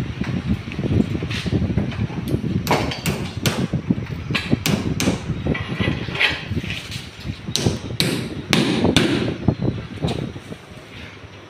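Hammer striking a steel pipe at a bench: a dozen or so sharp, irregular metal knocks, mixed with the clatter of the pipe and tools being handled. The knocks die away near the end.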